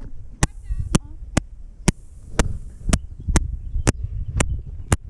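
Sharp clicks at a steady rate of about two a second over a low rumble, a recording fault in a GoPro Hero 5 Session's audio.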